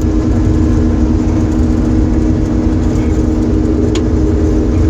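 New Holland TR rotary combine running steadily while harvesting tough barley, heard from inside the cab: a deep rumble with a steady droning hum over it, and a short click about four seconds in.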